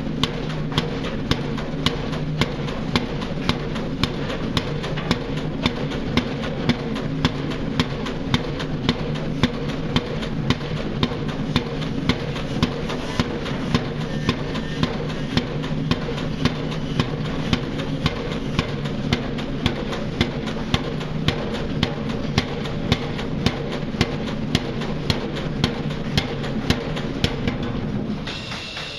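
Pile driver hammering a pile: a steady rhythm of sharp blows, under a second apart, over the steady drone of the rig's engine. The blows and engine noise drop away about a second before the end.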